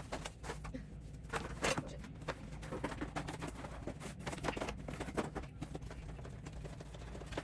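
Irregular rustling and small clicks and knocks of flat-pack lamp parts and packaging being handled and sorted, over a steady low room hum.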